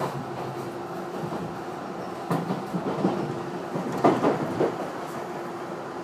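Running noise inside a Tobu 50090-series train car as it rolls slowly into a station, with a few sharp clacks of the wheels over the track about two seconds in and again around four seconds in.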